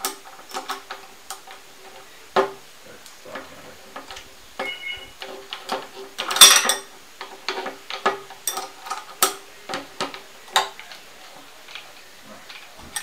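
Irregular light metal clicks and clinks of a small spanner working at the flange nut and spindle of an unpowered Black & Decker angle grinder, with one louder clack about six and a half seconds in.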